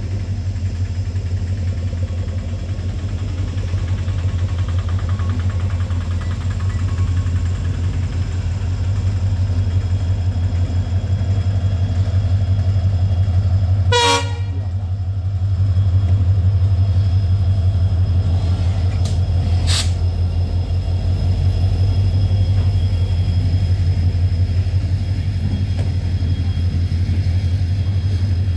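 Indian Railways diesel locomotive hauling a goods train of steel-coil flat wagons past, with a steady low engine rumble and the wagons rolling along the track. A brief sharp sound comes about halfway through.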